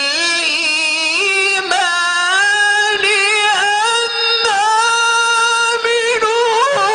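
A hafız's solo male voice chanting Quran recitation in the melodic tajwid style. He draws the words out into long, held, ornamented notes that waver and slide in pitch, with only short breaks between phrases.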